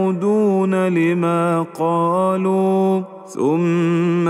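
Male voice in melodic Quranic recitation (tajweed), drawing out long, ornamented notes on the verse's syllables. About three seconds in he pauses briefly for breath, then resumes on a rising note.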